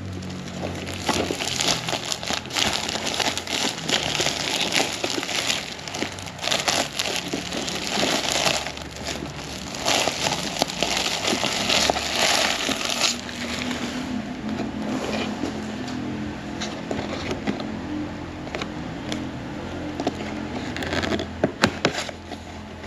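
Packaging of a Pop Mart blind-box set being unwrapped by hand, with continuous crinkling, crackling and tearing and many small sharp clicks.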